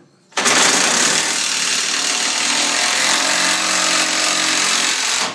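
A power tool running steadily for about five seconds, starting and stopping abruptly.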